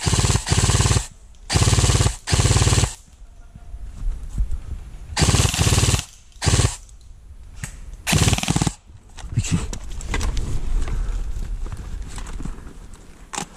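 Airsoft electric gun firing full-auto: about six short bursts of rapid clicking fire, each under a second, in the first nine seconds. Quieter scattered clatter follows.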